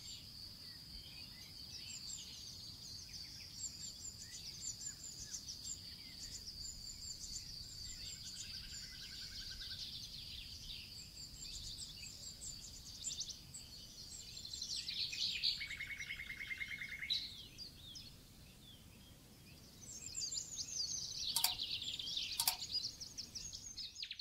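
Small birds chirping and trilling, over a steady high-pitched tone for the first half. A lower buzzy trill comes in the middle, and two sharp clicks sound near the end.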